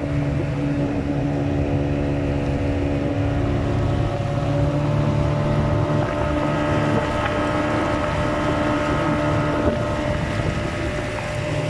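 A motorboat's engine running steadily as the wooden river boat cruises, with some wind noise on the microphone.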